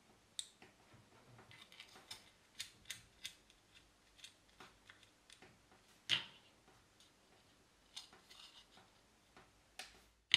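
Faint, scattered clicks and taps from a plastic LED lens and circuit board being handled, pressed together and set down on a wooden desk, with a louder knock about six seconds in.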